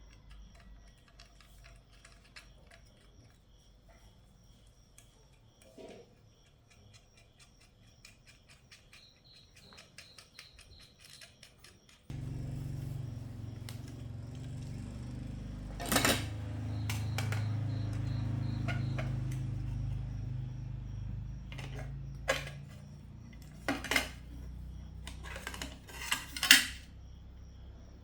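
A low, steady electrical hum switches on abruptly partway through. Over it come several sharp metallic clinks and clatters of small metal parts or tools being handled, the loudest near the end.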